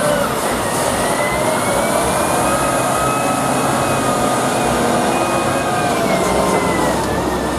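Heavy truck engine running steadily, its pitch rising slowly over the first few seconds and sinking again near the end.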